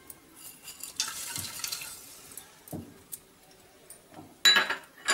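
Rock salt poured from a glass bowl into a pot of tomato charu, a brief hissing patter about a second in. A loud, sharp ringing clink comes near the end.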